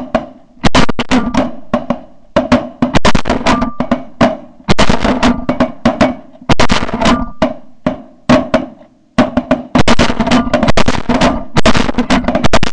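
Background music with heavy, fast drums and a sustained low backing.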